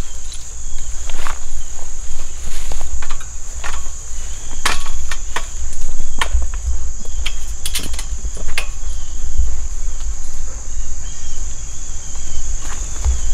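A steady chorus of crickets, with irregular crunches and snaps of footsteps through leaf litter and brush and a low rumble underneath.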